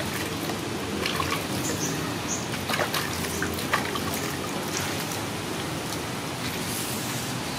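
Water splashing and trickling as a wet kitten is washed by hand over a basin, water running and dripping off its fur, with small splashes in the first few seconds.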